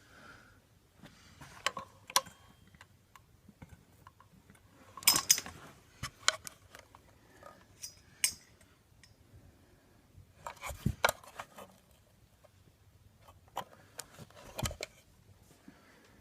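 Scattered clicks and clattering knocks of hard objects being handled, in small clusters with quiet between them, and no motor running.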